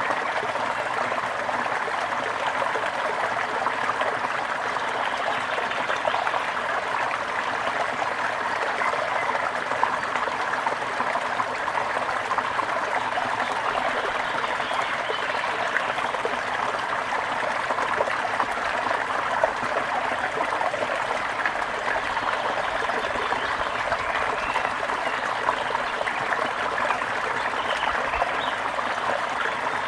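Water trickling and burbling steadily over stones, as in a small stream, with a few faint bird chirps near the end.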